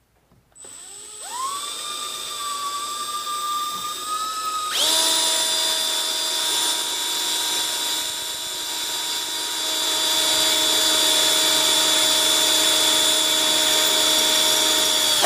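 Milwaukee cordless drill with a quarter-inch bit boring through an outboard motor's skeg. The motor whine starts about half a second in, runs at partial speed for a few seconds, then jumps to full speed at about five seconds and holds a steady high whine.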